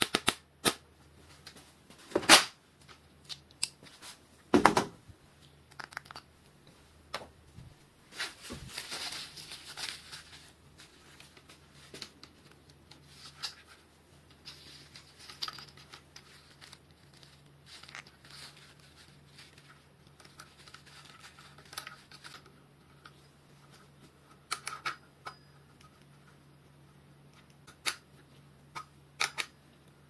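Hand tools and bicycle brake parts being handled while a hydraulic disc brake is fitted: scattered clicks, taps and light knocks, with two louder knocks in the first five seconds and a rustle about nine seconds in, over a faint steady low hum.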